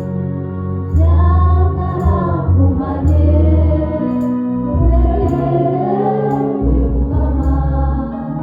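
Gospel music with a choir singing over a heavy bass beat.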